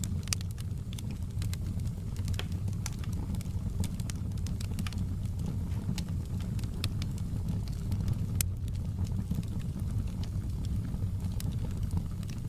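Wood fire crackling in a fireplace: a steady low rumble of burning with irregular sharp pops and snaps from the logs.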